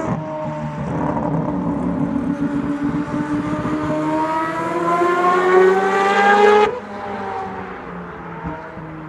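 Mazda four-rotor rotary Group C race car engine accelerating, its pitch climbing steadily and getting louder for about six seconds. It then cuts off suddenly, leaving a quieter, steady engine note.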